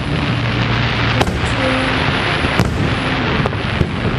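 Aerial firework shells bursting: two sharp bangs about a second and a half apart, then a few lighter pops near the end, over a continuous dense crackle.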